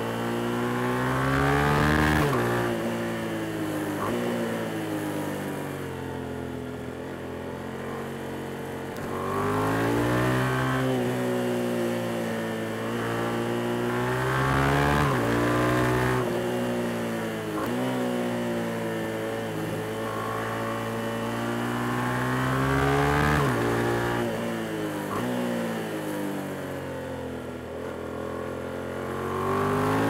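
Yamaha MT-07 (FZ-07) 689 cc parallel-twin engine under hard riding. The revs climb and fall over and over, with slow drops as it slows on the engine before picking up again. The pitch cuts down sharply several times as the throttle is shut or a gear is changed.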